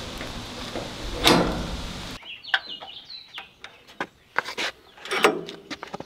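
Sawmill log clamp worked by hand against a log, with one loud metal clank about a second in; after that, a series of short, high chirps and small clicks.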